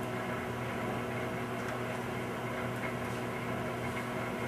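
Steady electrical hum over a faint hiss from a 1931 Philco Model 50 tube radio chassis being powered up slowly on reduced line voltage, its tube filaments just starting to glow.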